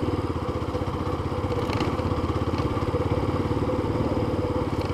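Yamaha Fazer FZ25 motorcycle's single-cylinder engine running steadily while the bike is ridden along a street, heard from the rider's position.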